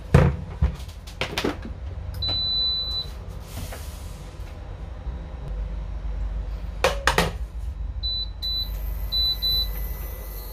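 Portable induction cooktop being set up: a few knocks from handling it, a beep of about a second as it powers on, then four short touch-panel beeps as its settings are pressed. A faint high-pitched whine starts near the end as the cooktop begins heating.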